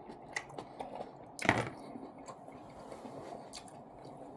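Close-up eating sounds of someone chewing steak: a run of small wet mouth clicks, with one louder, short noise about a second and a half in.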